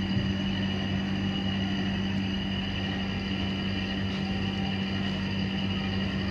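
Steady machine hum: a constant low drone with a fixed pitch that does not change.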